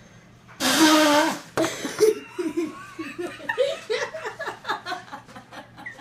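A person blowing their nose hard, a loud honking blast lasting about a second, followed by several seconds of quick repeated laughter.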